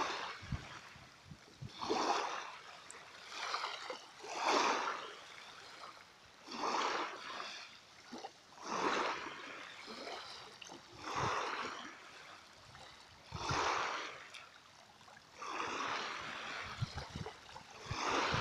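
Small waves washing in at an even pace, with a soft splash about every two seconds, eight or so in all.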